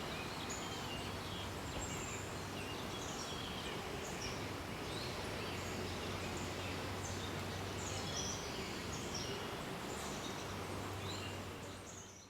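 Several birds chirping and calling in short, scattered notes over a steady background hiss. The sound fades out at the very end.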